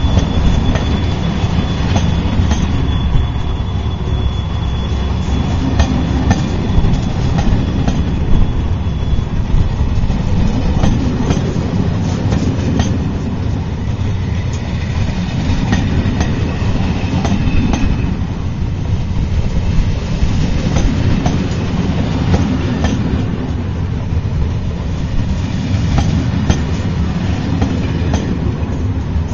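Corail passenger coaches rolling past on the rails: a steady low rumble with irregular wheel clicks over the track. A thin high wheel squeal fades out in the first few seconds.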